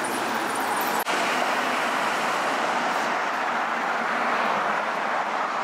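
Steady road-traffic noise, with a brief break about a second in.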